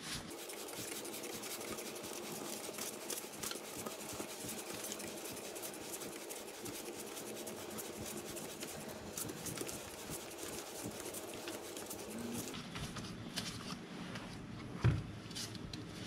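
Trigger spray bottle squirting kerosene onto a motorcycle drive chain in quick repeated sprays while the rear wheel is turned, rinsing loosened dirt off the chain. The spraying stops about three-quarters of the way through, and a single knock follows near the end.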